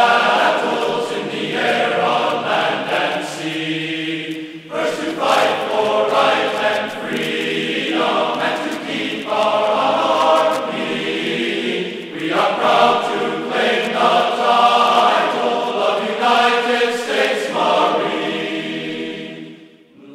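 A choir singing in long held chords, each chord lasting a few seconds, fading out near the end.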